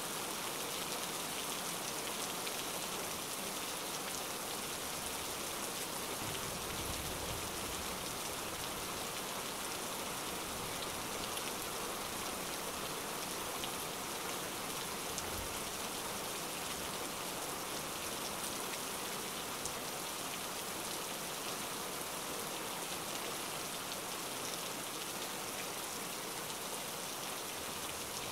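Steady patter of rain, played as a background ambience track.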